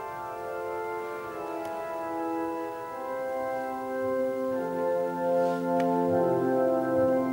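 Organ playing slow, sustained chords, with deep bass notes coming in about two-thirds of the way through as the music grows louder.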